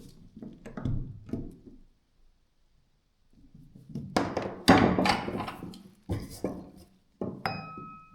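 Parts and tools knocking and clattering while a DeWalt D25003K hammer drill's gearbox is taken apart. The loudest clatter comes a little past halfway. Near the end, a struck metal part rings briefly with a clear tone.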